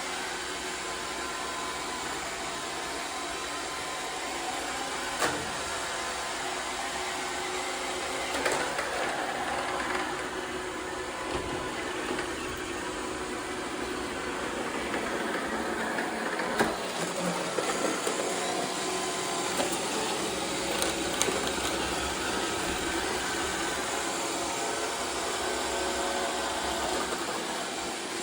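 iRobot Roomba 675 robot vacuum running, a steady whir of its vacuum motor and brushes with a few sharp knocks along the way.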